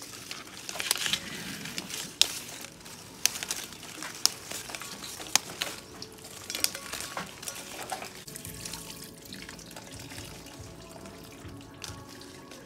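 Fresh mango leaves rustling, their stems snapping as they are broken off a sprig over a metal pot. There is a series of sharp snaps in the first eight seconds, then quieter rustling.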